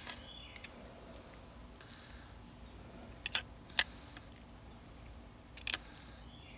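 Quiet knife work as a small crappie is gutted on a wooden board: the knife tip scrapes out the guts, with a few sharp clicks scattered through.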